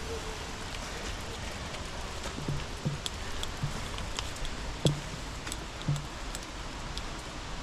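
Steady hiss of rain falling on forest foliage, with scattered sharp drip ticks. Soft footsteps on the trail land irregularly, roughly once a second.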